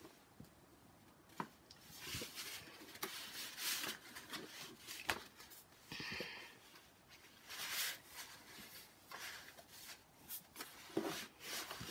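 Pen drawing on paper: faint, irregular scratchy strokes with a few light clicks.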